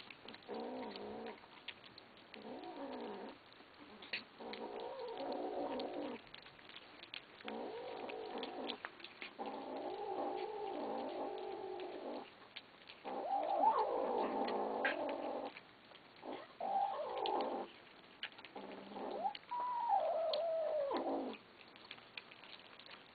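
Kittens growling at each other over food, in a run of long, wavering growls about one to three seconds each with short breaks between them. Near the end one growl turns into a cry that falls in pitch.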